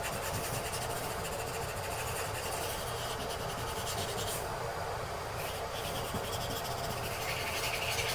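Fine-grit wet sandpaper rubbed back and forth by hand over a cured gelcoat repair on a fiberglass bathtub, a steady rasping hiss as the patch edge is smoothed.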